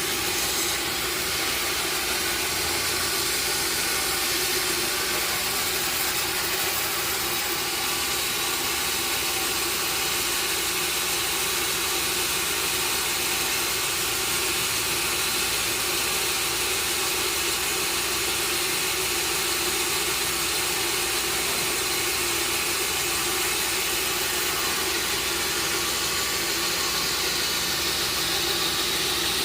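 Sawmill machinery running steadily: an even mechanical hum with a broad hiss over it, holding constant with no breaks or impacts.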